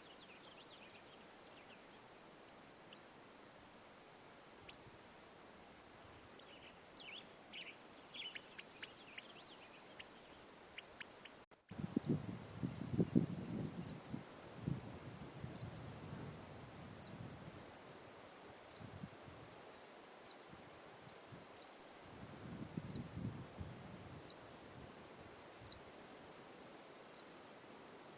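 Sharp, high chip calls from a small animal. At first they come irregularly, some in quick clusters. After an abrupt cut about 11.6 s in, a steady series follows, roughly one chip every second and a half, with low rumbling noise under some of it.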